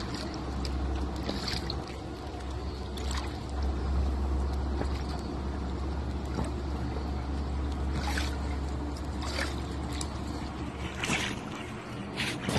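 Swimming-pool ambience: a steady low rumble with light water sloshing, and a few short rustling noises about 8, 9.5 and 11 seconds in.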